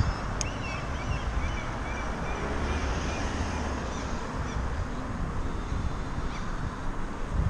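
Wind buffeting the microphone and tyre noise of a bicycle rolling on asphalt, with a sharp click about half a second in and a few short high chirps over the next two seconds.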